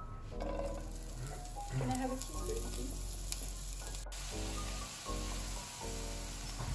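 Food sizzling as it fries in a pan, under background music of held notes that change every half second or so.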